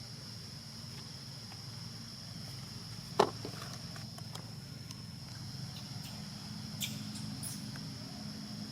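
A steady high-pitched insect drone over a low hum, with one sharp knock about three seconds in and a few faint clicks after it.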